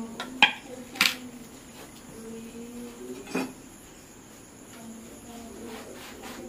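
Two sharp metal clinks about half a second apart, from aluminium and steel kitchen dishes knocked on a floor, and a softer knock near the middle. Crickets chirp steadily in the background.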